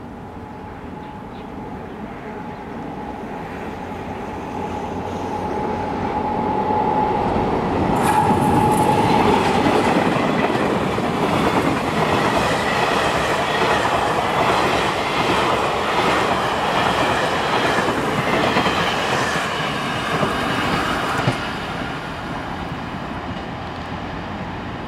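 Taiwan Railways Fu-Hsing passenger train, a locomotive hauling a string of coaches, approaching and passing close by on a bridge. A steady hum grows louder over the first several seconds. The wheels then clatter over the rails as the coaches go by, loudest from about eight seconds in, and the sound falls away a few seconds before the end.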